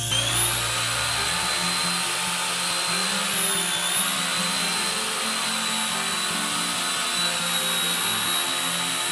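Homemade portable belt sander driven by an angle grinder, its motor running with a steady high whine; the pitch dips briefly about three to four seconds in, then holds steady.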